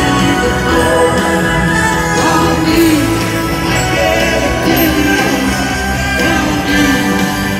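Live rock band and string orchestra playing together, with electric guitars, violins and a sung lead vocal over the music.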